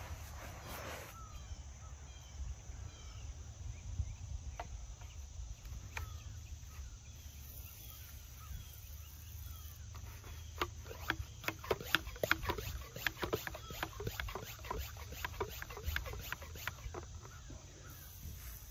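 Brush scrubbing on the stone, stopping about a second in, with faint bird chirps after. From about ten seconds in, a quick run of sharp clicks and knocks for several seconds as the hand pump sprayer is handled.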